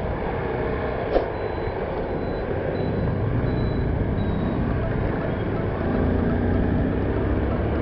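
Motorcycle riding through city traffic: wind rushing over the action camera mixed with the bike's engine running, a little louder from about six seconds in. A single sharp click sounds about a second in.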